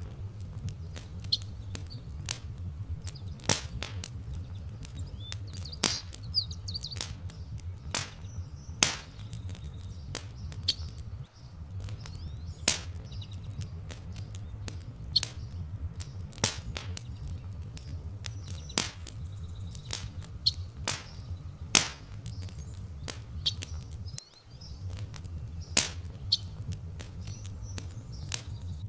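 Wood fire crackling, with frequent sharp, irregular pops over a steady low rumble. Faint bird chirps come through in the background.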